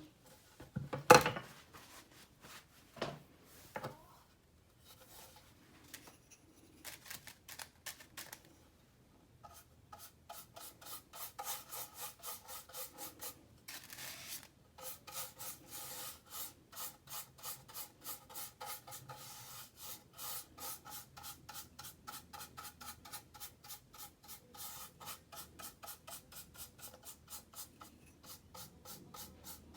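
Plastic airsoft magazine being lightly sanded by hand, quick back-and-forth rubbing strokes about three a second from about ten seconds in: a light scuff to take off oils so the paint adheres. A loud knock about a second in, from handling.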